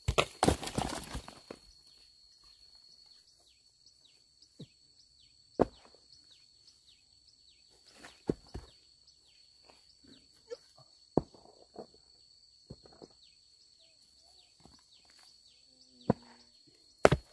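Scattered sharp knocks: a quick flurry of them at the start, then single knocks every second or two. A steady high-pitched whine and faint short chirps run underneath.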